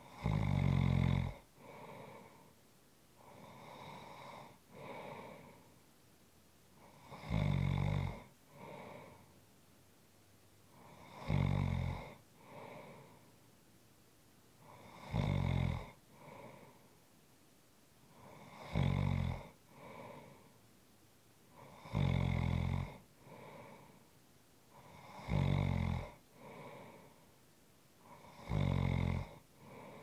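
A person snoring in a steady rhythm: eight loud, low snores, each about a second long, come roughly every three and a half seconds, with softer breaths in between.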